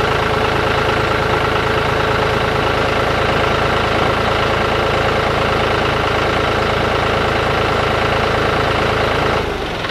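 John Deere tractor's engine idling steadily, then shutting off near the end.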